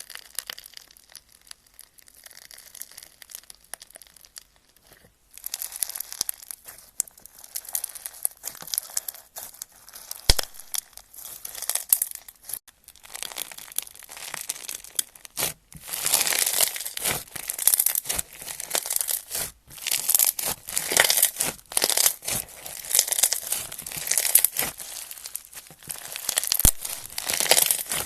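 Slime being worked by hand, with a dense run of crackling, popping and squelching. It is faint for the first few seconds, grows busier about five seconds in, and gets louder still past the middle.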